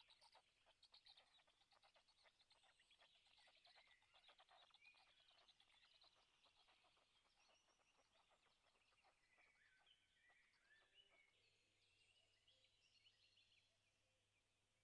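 Faint dawn birdsong from small forest birds, many short phrases overlapping. Quick soft clicks run through the first ten seconds or so, then thin out. A steady faint low hum sits underneath.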